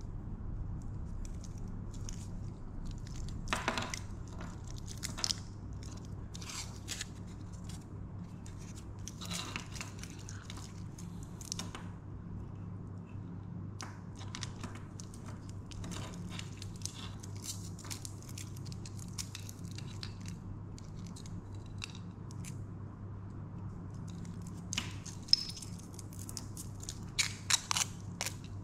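Hands handling a stainless steel watch bracelet: plastic protective film peeling and crinkling, with light clicks and rattles of the metal links and clasp, over a steady low hum. The sharpest clicks come near the end.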